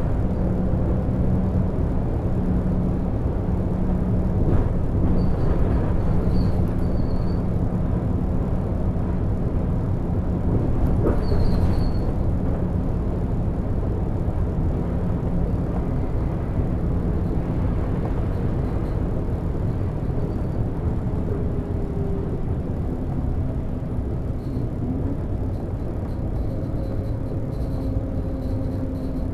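Volvo B12BLE bus with a DH12E six-cylinder diesel, under way, heard from the driver's side of the cabin: a steady engine drone over road and tyre rumble, its pitch shifting as the bus changes speed. There are a couple of brief faint high squeaks in the first half.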